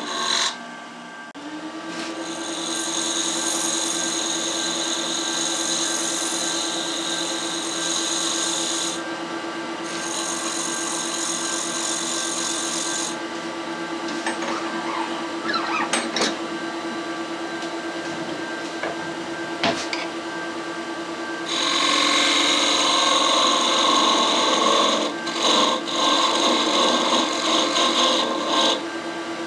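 Wood lathe running with a steady whine while a hand turning tool scrapes and cuts the spinning softwood blank. The cutting comes in spells, over roughly the first dozen seconds and again, louder, from about twenty-two seconds until near the end.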